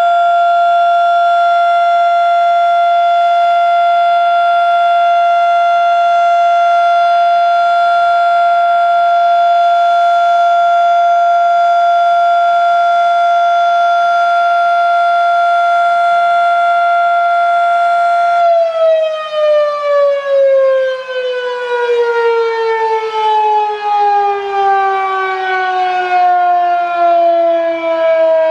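Federal Sign and Signal Model 3 outdoor warning siren sounding a single steady tone during a test. About two-thirds of the way through it shuts off and winds down, its pitch falling in a long slide while the loudness wavers.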